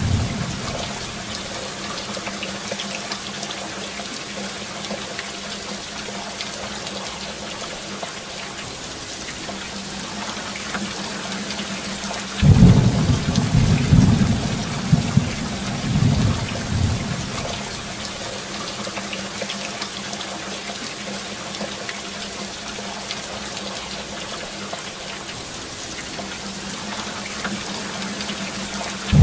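Steady rain hiss with a thunder rumble breaking in about halfway through, rolling for around five seconds in a few surges before the rain alone carries on.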